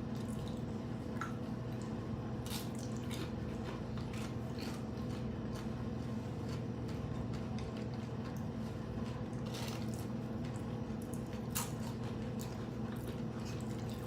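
Close-up eating: chewing crunchy food with short crackles and wet mouth sounds, a few louder crunches scattered through, over a steady low hum.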